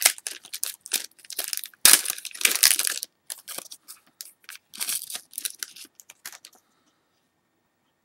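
Plastic wrapper of a trading-card pack crinkling and tearing as it is handled and opened: a dense run of sharp crackles that stops about six and a half seconds in.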